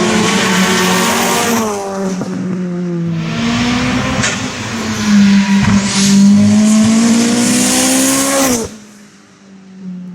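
Rally car engine at full throttle, revs climbing and dropping with gear changes, twice in a row. It cuts off sharply near the end, leaving only a faint trace.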